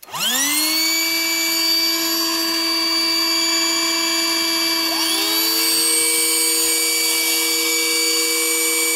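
Two battery-powered electric boat pumps, a Bravo BST 800 and a Bravo BTP 12 Digital, switched on to deflate the boat's tubes. One pump's turbine spins up at once with a rising whine, the second spins up about five seconds in, and both run on with a steady whine.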